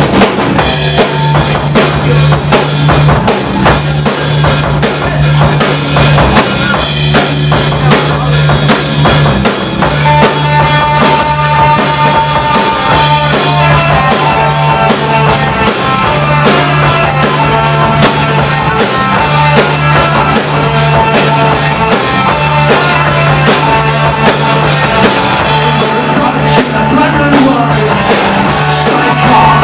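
Live rock band playing loudly: a drum kit, bass guitar and electric guitars, with a long held high note coming in about ten seconds in.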